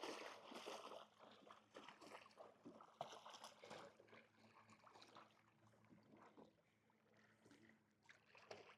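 Faint, irregular splashing and sloshing of lake water as a dog moves and paddles in the shallows, thinning out over the last few seconds.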